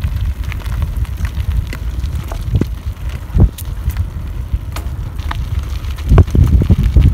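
Wind rumbling on the microphone over a mountain bike rolling on a gravel path, with scattered crunches and pops from the stones under its tyres. The rumble gusts louder about six seconds in.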